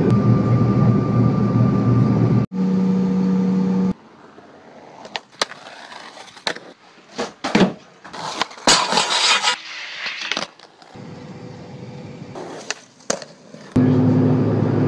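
Steady airliner cabin noise of engines and airflow for the first few seconds. It cuts to a skateboard on a wooden floor: scattered clicks and knocks of the deck and wheels, with a short hissing rush about nine seconds in. Near the end a loud steady noise cuts in.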